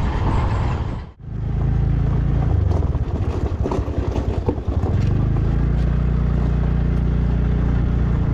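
Motorcycle running along a road, a steady low rumble of engine and riding noise. It cuts out briefly about a second in, and there is uneven rattling between about two and five seconds in.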